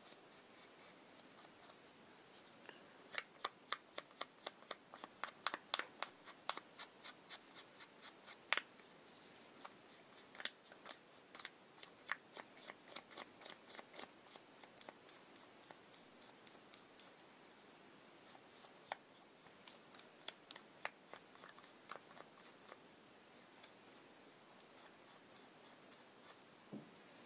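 A small ink pad tapped again and again against a paper flower's petals: quick, light, crisp ticks about three or four a second, with a few short pauses.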